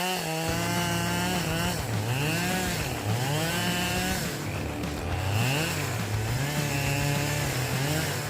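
Chainsaw engine running at speed while cutting wood, its pitch repeatedly sagging and climbing back several times as the chain bites in.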